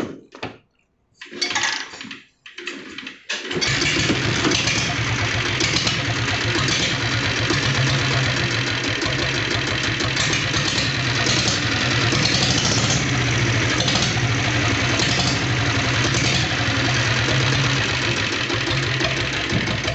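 Single-cylinder diesel engine of a Royal Enfield Diesel Bullet, the company-fitted 7.5 HP unit, catching about three and a half seconds in after a few brief sounds, then running steadily at idle with a crisp beat.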